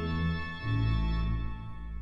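Church organ holding a chord; a deep bass note comes in about half a second in, and the sound starts to die away near the end.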